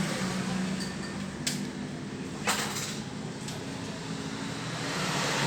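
A steady low engine hum, a motor vehicle running nearby, growing louder near the end, with two sharp clicks about a second apart.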